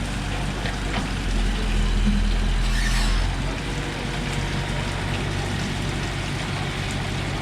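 Volvo wheeled excavator's diesel engine running steadily, working harder and louder for about two seconds from a second in, with a brief hiss about three seconds in.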